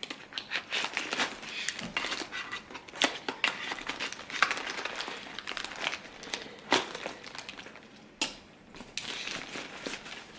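Crinkling and rustling of plastic and fabric as toiletry items are handled and packed into a toiletry bag, with a few sharp clicks and knocks of items set down.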